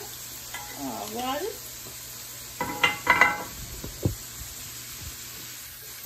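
Ground beef sizzling as it browns in a frying pan while being stirred, with a few short clinks and a knock about three to four seconds in.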